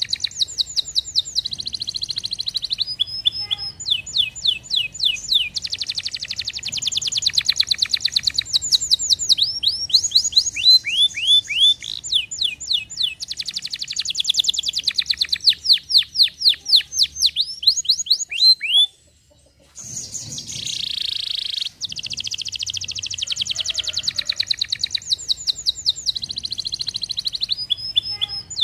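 Domestic canary singing: long rapid trills and rolls of repeated notes, runs of fast downward-sweeping whistles, with a brief pause about two-thirds of the way through.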